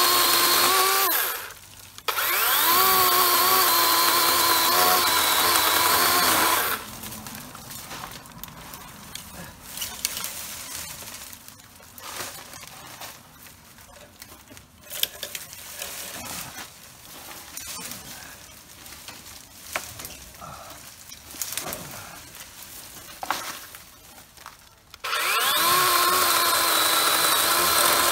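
DeWalt 18-volt brushless cordless chainsaw (DCM565) cutting green branches in three bursts. Its electric motor whine spins up at the start of each burst. In the long quieter stretch between the second and third bursts, branches rustle, crack and snap as they are handled.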